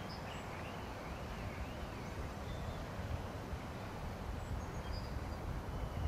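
Wind rumbling on the microphone, with faint bird calls over it: a wavering warble in the first two seconds or so and a few short high notes later.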